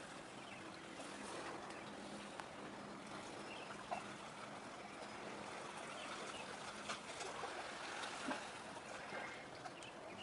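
Faint outdoor ambience by the sea: a steady water-like hiss with a low distant hum that fades out about six seconds in, and a few short chirps and clicks.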